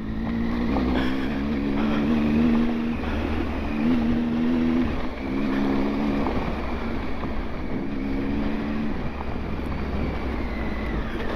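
Adventure motorcycle engine running on a rough gravel track, its note swelling and easing off every second or two as the throttle is opened and closed, over a steady rush of wind on the microphone.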